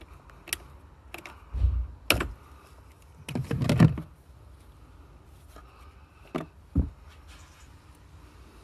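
Scattered clicks and knocks from hands and tools working on a vacuum line, with a low thump about one and a half seconds in and a louder cluster of knocks around three and a half seconds in.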